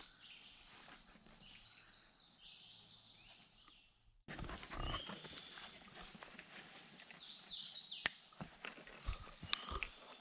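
Footsteps on a dirt woodland trail, with faint bird calls above them. The sound drops out almost completely about four seconds in, then comes back suddenly.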